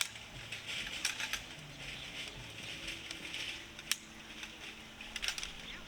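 Scattered light clicks and clinks of small hard objects over a steady faint hiss, with a few clustered together about a second in and again a little after five seconds.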